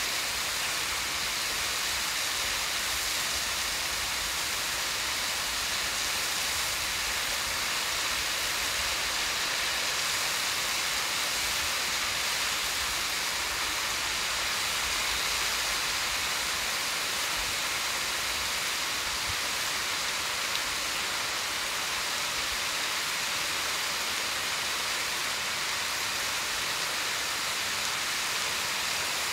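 A thin waterfall dropping down a rock cliff, heard as a steady, even hiss of falling water.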